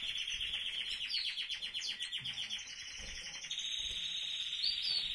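Small cage birds in an aviary chirping and trilling continuously, a dense high twittering of rapid trills.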